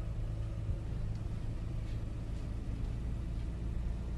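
Steady low engine hum and road rumble heard from inside the cab of a moving car.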